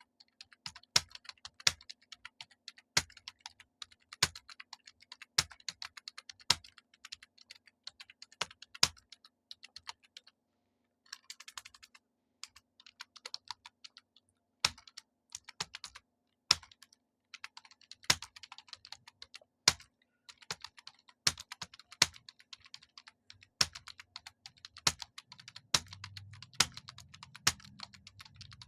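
Fast typing on a computer keyboard: a quick patter of key clicks with a louder keystroke about once a second, breaking off for a moment about ten seconds in. A faint steady hum runs underneath.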